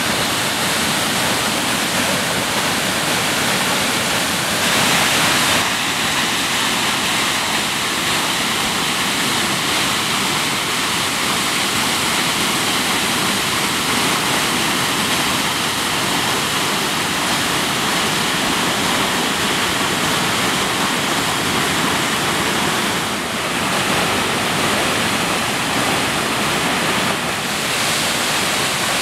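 Waterfall in heavy flow, water pouring over a rock face and churning down cascades: a loud, steady rush, briefly a little louder about five seconds in.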